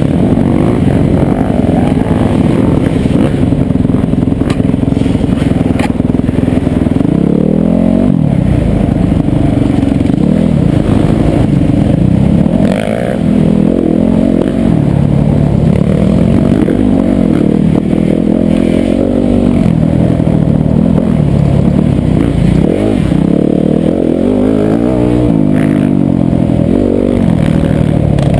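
Yamaha YZ250FX single-cylinder four-stroke enduro motorcycle being ridden hard. The engine holds a steady pitch at first, then from about a quarter of the way in it revs up and falls off again and again as the throttle is worked and gears change, with occasional knocks and rattles from the bike.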